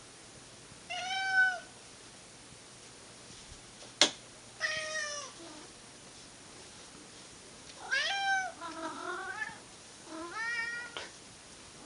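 Domestic cat meowing repeatedly: about four drawn-out calls a few seconds apart, two of them close together around eight seconds in. A single sharp click or knock comes about four seconds in.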